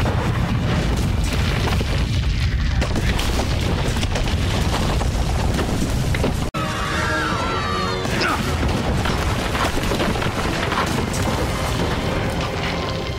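Cartoon earthquake sound effect: a deep, continuous rumble of shaking ground and breaking rock, with a music score underneath. The sound cuts out for an instant about six and a half seconds in, then the rumbling resumes.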